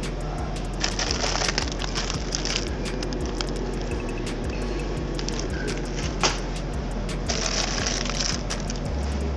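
Plastic film packaging crinkling and crackling as a wrapped fruit box is handled, in two spells, about a second in and again near the end, with one sharp click a little after six seconds. A steady low hum runs underneath.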